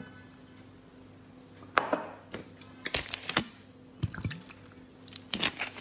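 Water poured from a plastic bottle into a glass dish of marinade, splashing and dripping, with a few sharp clicks; it starts about two seconds in.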